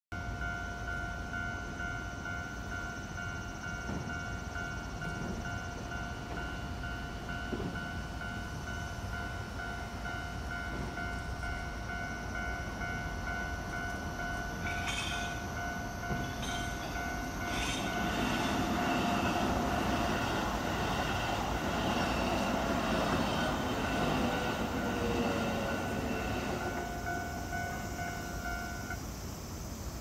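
Japanese level-crossing warning bell ringing steadily in two pulsing tones, stopping near the end. From about 18 to 27 seconds in, a Keikyu Blue Sky Train passes over the crossing, its running noise rising over the bell with a falling whine.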